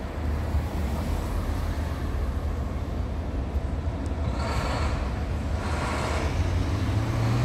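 City street traffic: a steady low rumble, with a vehicle passing about four to six seconds in, then an engine rising in pitch near the end as a vehicle accelerates.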